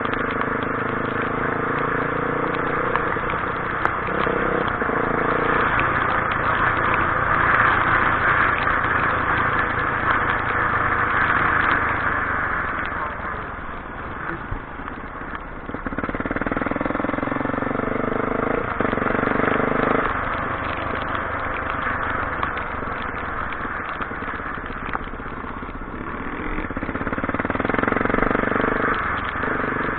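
Steady hiss of light drizzle falling. A motor's hum comes and goes a few times over it.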